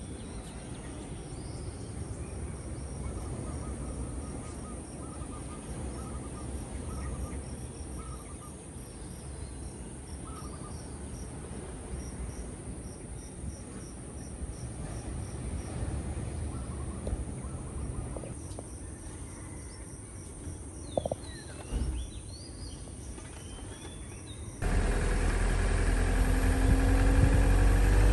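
Night-time outdoor ambience: insects chirping in a fast, even rhythm over a low steady rumble, with a few soft chirps. About 25 seconds in it cuts suddenly to louder car engine and road noise.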